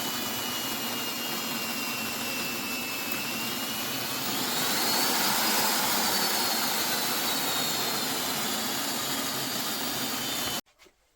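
Einhell TH-ID 1000 E electric hammer drill running freely, a steady motor whine over a dense whirring noise. The whine rises in pitch and gets louder about halfway through, eases back, then stops abruptly near the end.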